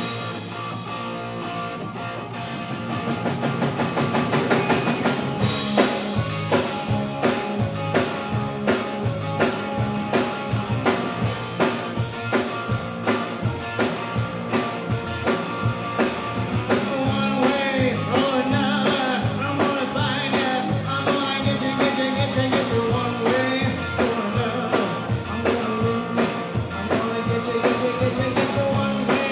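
Live rock band playing a song: it opens on electric guitar, the drum kit joins a few seconds in and the full band with cymbals is playing from about five seconds, with a lead singer over it.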